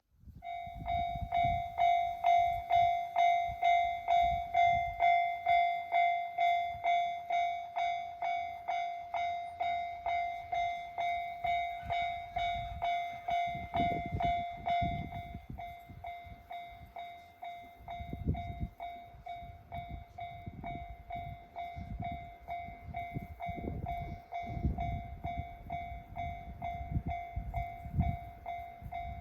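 Japanese railway level-crossing warning bell starting to ring, a clanging tone repeating about twice a second. The strokes blur into a steadier ring in the second half, under a low rumbling noise that comes and goes.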